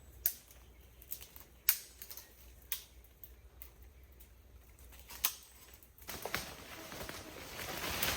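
Wood campfire crackling, with a few sharp, separate pops. From about six seconds in it turns into denser, louder crackling.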